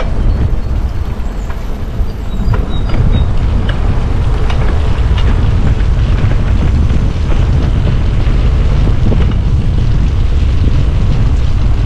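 Steady wind buffeting on the microphone and tyre and road noise from a Stromer ST2 e-bike riding along at speed. Small clicks and rattles are scattered throughout.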